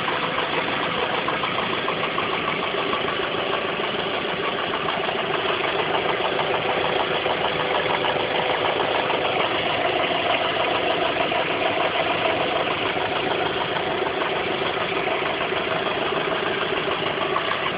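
VW Passat 3BG 1.8T's turbocharged four-cylinder petrol engine idling warm with a steady, rapid diesel-like clatter ("Nageln"), an odd noise whose cause the owner does not know.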